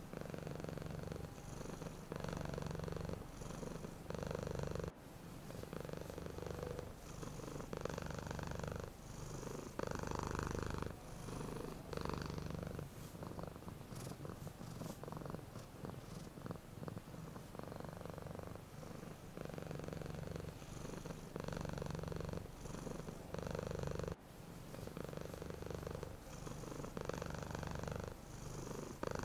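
Domestic cat purring: a low buzz that swells and dips in even cycles of about a second, with the breath in and out. For a few seconds around the middle the rhythm loosens and faint ticks come through.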